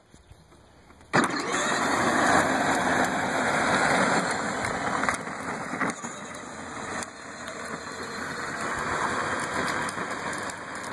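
Power Wheels Jeep ride-on toy's electric motors and gearboxes whirring as it drives, cutting in abruptly about a second in and running on, a little quieter in the second half, with its rubber-treaded tires rolling on pavement.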